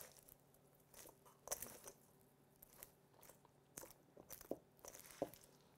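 Faint, irregular crunching and crackling of caramel-coated popcorn being folded with a spatula in a stainless steel mixing bowl.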